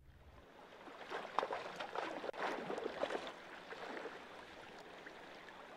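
Creek water splashing, busiest between about one and three seconds in, then settling into a steady rush of flowing water.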